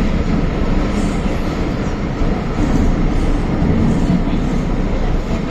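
Cabin noise of an MTR M-Train running in a tunnel, heard from inside the car: a steady running noise, mostly low in pitch.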